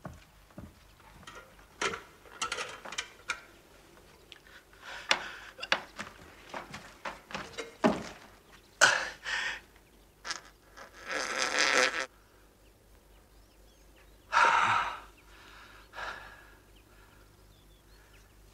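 A man's pained groans and gasps from stomach cramps, broken up by scattered thumps and knocks as he moves. There are louder outbursts about nine, eleven and fifteen seconds in.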